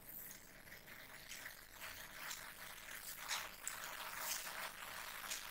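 Faint scraping and rustling of fingers sliding over a cardboard headset box, with a few light ticks as the lid is worked open.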